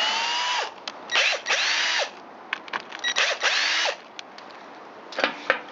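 Cordless drill-driver running in about four short bursts, each spinning up and winding down, backing out the screws that hold a chainsaw's top handle. A few light clicks near the end.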